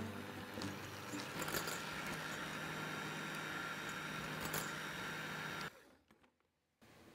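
Electric hand mixer running steadily, its wire beaters whisking frothy egg whites in a glass bowl, with a low hum and a steady whine over the whirring. It cuts off suddenly near the end.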